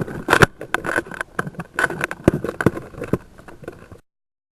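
Irregular sharp clicks and knocks with scuffing noise, loudest in the first half and fading. The sound cuts off abruptly about four seconds in.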